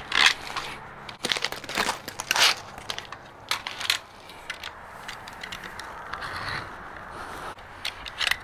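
Utility knife cutting through thick ribbed rubber matting along a straightedge: irregular scraping, dragging strokes with crackles and clicks. The rubber is tough to cut.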